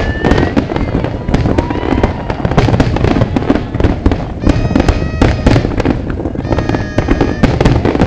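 Large fireworks display: a dense, unbroken run of bangs and pops. A couple of held pitched tones sound over it about halfway through and again near the end.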